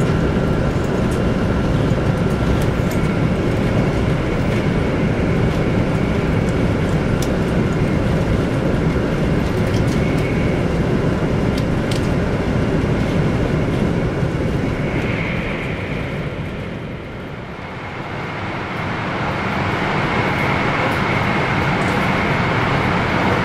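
Cabin noise of a 100 series Shinkansen running at speed: a steady rush of wheel and wind noise with a faint held whine. It dips for a moment about three-quarters of the way through, then comes back.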